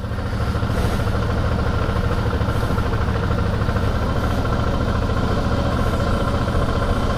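Suzuki V-Strom motorcycle's V-twin engine running steadily at low speed on a dirt road, heard from on the bike itself.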